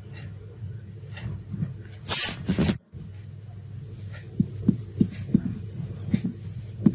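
Felt-tip marker tapping and scraping on a whiteboard as words are written, in short strokes over a low steady hum. About two seconds in there is a loud rushing noise lasting under a second, and the sound cuts out for a moment.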